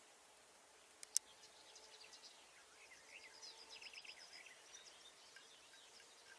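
Faint birdsong: small birds chirping in quick high series over a soft background. A single sharp click comes about a second in.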